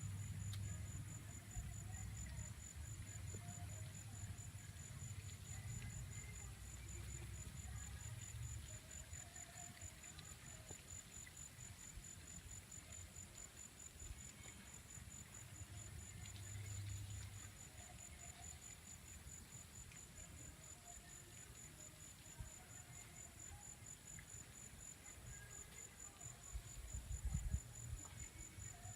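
Insects trilling: a faint, steady, high-pitched pulsing trill that never stops, over a low rumble.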